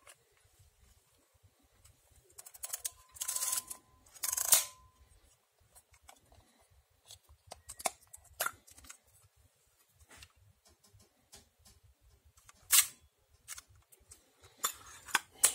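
Mechanism of a Sokol-2 rangefinder camera with Industar-70 lens being worked by hand: scattered small mechanical clicks, with two longer noisy strokes about three to five seconds in and a single sharp click near the end.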